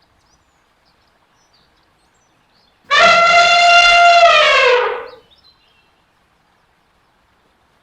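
An elephant trumpeting: one loud call of about two seconds, starting about three seconds in, holding a steady pitch and then dropping as it fades away.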